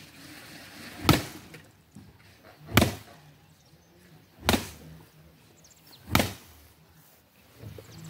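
A wooden stick beating a woven plastic sack full of maize cobs, four heavy thwacks about 1.7 seconds apart: the maize is being shelled by beating the kernels off the cobs inside the sack.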